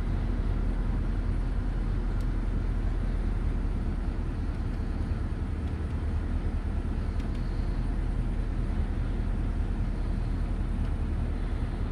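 Car engine idling steadily, heard from inside the cabin as a low rumble, with a few faint clicks as the navigation unit's buttons are pressed.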